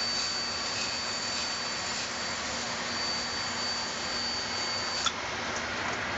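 Steady rush of air and fan noise inside a parked Boeing 777 cockpit from its ventilation and equipment cooling, with a thin high whine that stops with a click about five seconds in.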